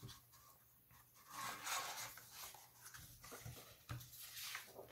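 Printed paper sheets being handled and shifted: a faint rustling and sliding of paper, loudest between about one and three seconds in, followed by a couple of light taps.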